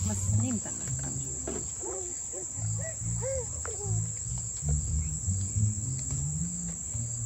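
A steady, high-pitched chorus of night insects trilling without a break, with faint voices in the background.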